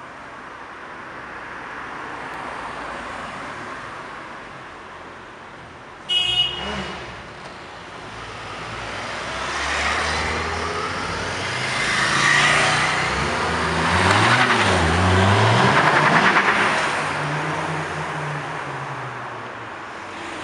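2008 Dodge Viper SRT-10 ACR's 8.4-litre V10 pulling away under modest acceleration, its revs rising and falling several times and loudest from about twelve to seventeen seconds in. A short, high-pitched toot about six seconds in, over street traffic.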